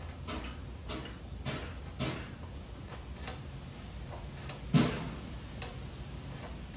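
Masking tape being peeled off a freshly sprayed bumper panel in short tugs, giving irregular sharp ticks, roughly one or two a second, with a louder snap a little before the end. A steady low hum runs underneath.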